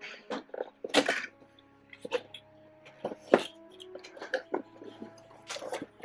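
Cardboard toy packaging being opened and handled: a run of irregular sharp clicks, taps and scrapes with light rustling, the loudest snap about a second in and another a little past three seconds.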